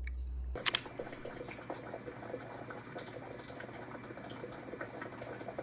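Water running from a tap, starting with a sharp click about half a second in and cutting off suddenly near the end.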